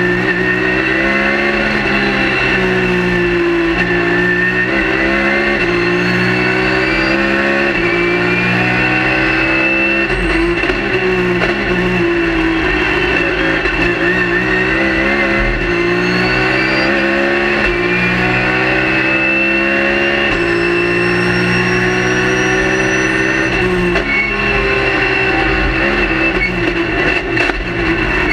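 Race car's engine heard from inside the cockpit, revving up through the gears and dropping back on braking and downshifts again and again, with a steady high whine over it.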